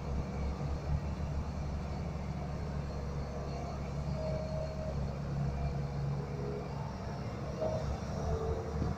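SANY crawler excavator's diesel engine running steadily while the machine swings and digs, a continuous low hum.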